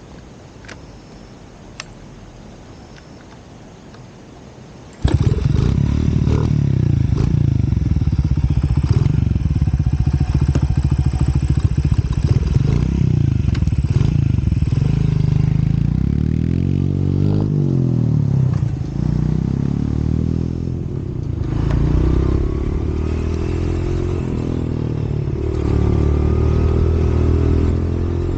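An engine starts about five seconds in and keeps running loudly, its pitch rising and falling as it revs.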